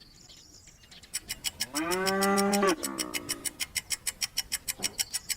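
A cow mooing once, a single drawn-out moo about two seconds in. Under it runs a steady rapid ticking of about five clicks a second.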